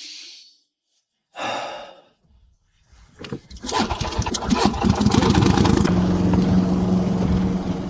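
An engine starting up and running, rough and uneven at first, then settling about six seconds in into a steady low drone. A short swoosh comes at the very start, and a brief sound about a second and a half in.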